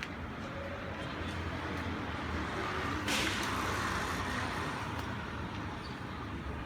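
City street traffic: a motor vehicle rumbles past, swelling in the middle, with a short sharp hiss about three seconds in.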